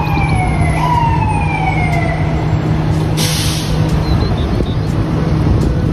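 Police siren wailing in slow falling sweeps that jump back up and fall again, the last one sliding down and fading out, over a steady low engine-like rumble. A short hiss comes a little after three seconds.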